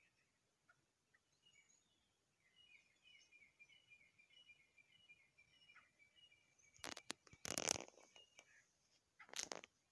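Grey francolin pair calling: a faint run of quick, repeated high notes, then two loud, harsh bursts near the end.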